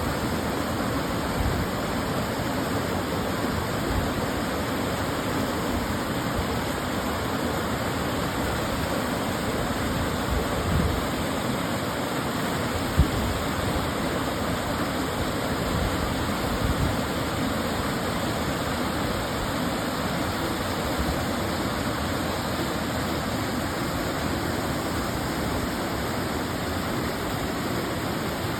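A small woodland waterfall, water running steadily over the falls. A few brief low thumps come through the rush, the sharpest one about halfway through.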